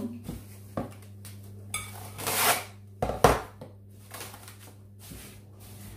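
Cling film being pulled off its roll and stretched over a ceramic mixing bowl, rustling and crinkling about two seconds in. A couple of sharp knocks follow about a second later, the loudest sounds here.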